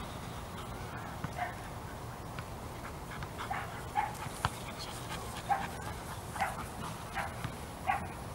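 A young golden retriever yipping and barking in short, separate calls: one about a second and a half in, then several more at roughly one-second intervals from about three and a half seconds on.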